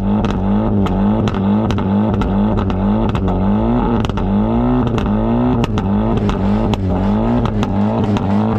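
Honda i-VTEC petrol engine revved over and over through its exhaust in quick blips. Each blip rises in pitch and then drops off sharply, and sharp cracks recur throughout.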